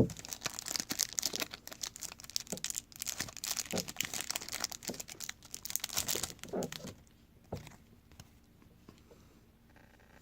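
Wrapper of a Topps trading card pack crinkling and tearing as it is cut and pulled open with scissors: a dense crackle that stops about seven seconds in.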